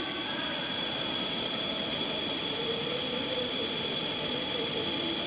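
Metal lathe running with a cutting tool working a large spinning metal disc, with a steady high-pitched whine over the machine noise.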